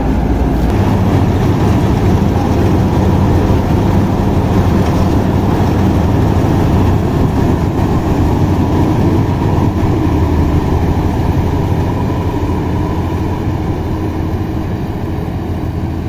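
Marksan K-BOS Mudmaster MS-1200 rice combine harvester running as it cuts paddy: a loud, steady engine and machinery drone with a constant low hum, easing slightly near the end as the machine moves away.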